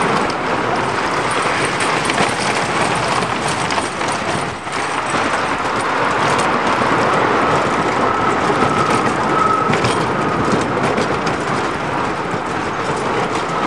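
Wooden roller coaster train running along its wooden track: a steady, loud rumble and clatter of the cars' wheels, with a thin squeal coming in from about eight seconds in.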